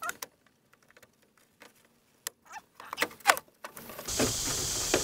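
Plastic aftermarket taillight housing being pressed and worked into a VW Vanagon's rear light opening: after about two seconds of quiet, a few clicks, scrapes and short squeaks of plastic against the body. A steady hiss begins about four seconds in.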